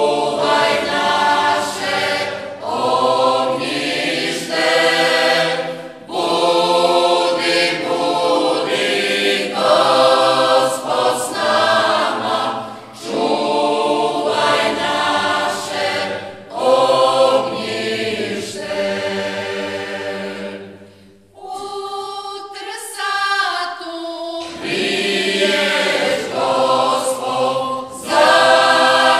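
Mixed-voice folk choir singing a Marian hymn unaccompanied in the traditional style of the Slunj region, in phrases of a few seconds with short breaths between them. Near the end the singing thins to a single voice for a few seconds before the whole group comes back in.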